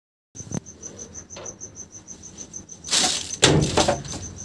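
A cricket chirping steadily as a high, evenly pulsing trill of about seven pulses a second. A loud burst of rustling and knocks, the loudest sound, comes about three seconds in.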